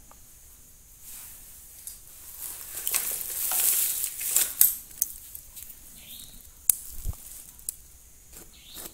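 Handling noise of a thin insulated jumper wire being worked by hand over LED backlight beads: a soft rustle that swells about three to five seconds in, with a few sharp clicks after.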